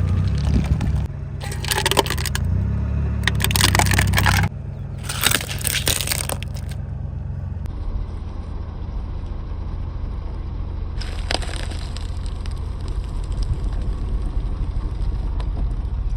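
A car tyre rolling over and crushing crunchy objects: three crackling crunches in the first seven seconds, then a longer crackling stretch from about eleven seconds, over the low rumble of the car.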